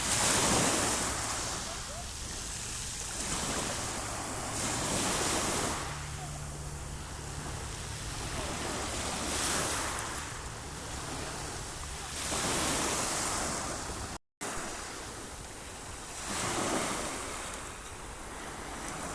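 Sea waves breaking on a shore, a wash that swells and falls every three to four seconds. The sound cuts out completely for a split second about fourteen seconds in.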